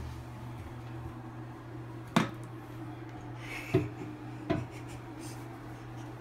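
Three sharp knocks in a small tiled bathroom, about two, three and a half, and four and a half seconds in, the first the loudest, over a steady low hum.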